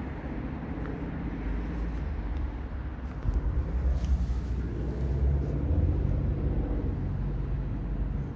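Steady low rumble of a motor vehicle engine running, swelling louder about three and five seconds in.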